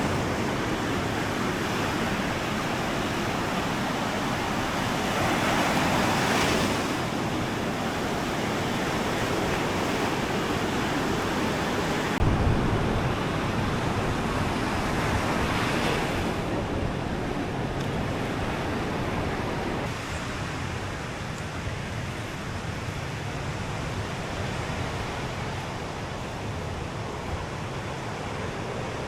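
Sea surf washing steadily onto a sandy beach, swelling louder as waves break about six and sixteen seconds in. A sudden low rumble comes in about twelve seconds in.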